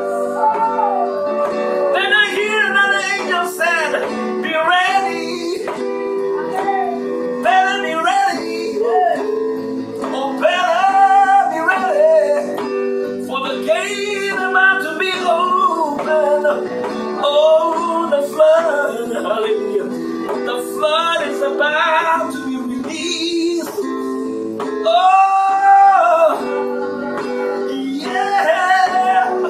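A man singing slow, drawn-out phrases over sustained chords played on an electronic keyboard.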